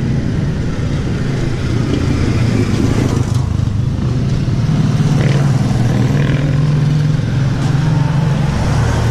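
A motor vehicle's engine running close by, a steady low hum that grows louder about halfway through.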